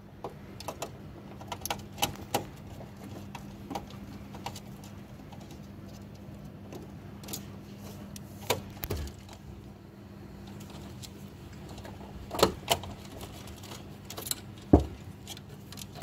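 Wiring work in an electrical control panel: scattered light clicks and rustles of wire being handled against plastic cable duct and terminal blocks, with a few sharper knocks, over a steady low hum.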